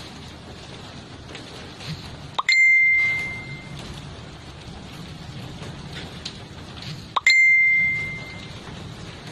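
Two identical bell-like dings about five seconds apart, each struck sharply and ringing out for about a second, over a steady rain-like hiss.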